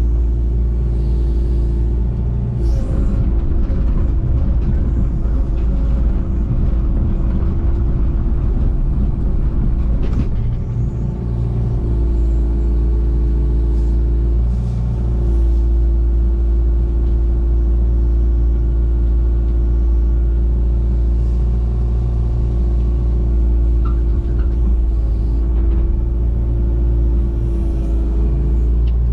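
Digger engine running steadily at working revs, with a few short knocks and scrapes as gravel is handled.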